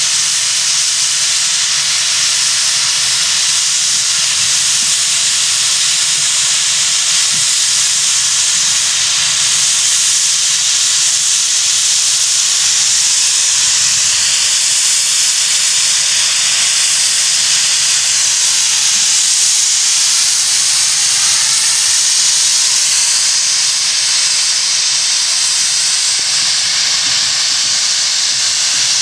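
Dubs crane tank steam locomotive's safety valves blowing off: a loud, steady hiss of escaping steam, the sign of the boiler at full working pressure.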